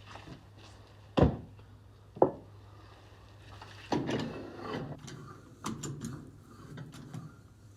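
Metal handle and bracket on a slurry tanker being worked: two sharp clacks about a second apart, then a stretch of rattling, scraping and clicking of metal parts as the lever is moved and adjusted.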